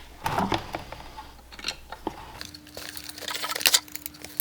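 Clicks, scrapes and rattles of tools and metal parts being handled while a screw is taken out of a car's in-tank fuel pump assembly, with a faint steady hum through the second half.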